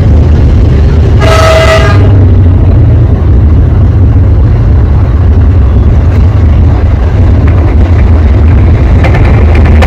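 Diesel locomotive's horn sounding once, a single blast just under a second long, over a loud, constant low rumble.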